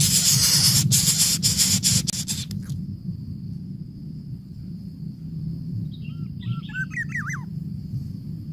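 A loud hiss with scattered clicks fills the first two and a half seconds and then stops. A steady high thin tone and a low hum follow. About six seconds in, a small bird gives a quick run of chirps, sliding up and down in pitch.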